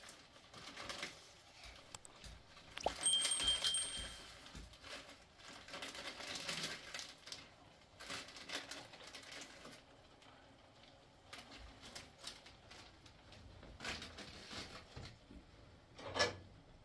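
Scattered handling noises, rustles and light knocks, with a short ringing clink about three seconds in and a sharp knock near the end.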